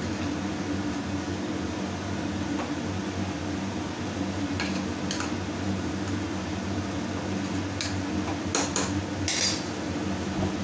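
Metal spoon stirring beans curry in an open pressure cooker, clinking against the pot a few times, with a brief cluster of louder clinks near the end as the spoon is set down on the pot. A steady low hum runs underneath.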